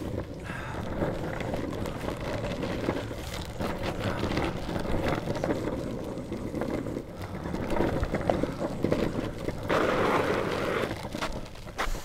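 Longboard wheels rolling over a rough dirt-and-grit towpath: a continuous gritty rumble that swells and fades with the ride, loudest a little before the end.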